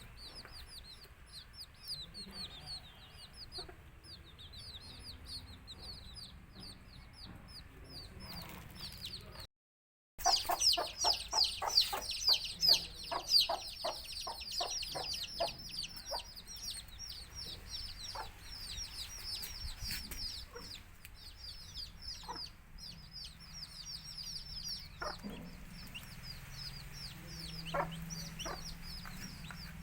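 A brood of chicks peeping continuously in quick, falling high notes, with a hen clucking among them. The sound cuts out for a moment about ten seconds in and comes back louder, with a run of rapid clucks.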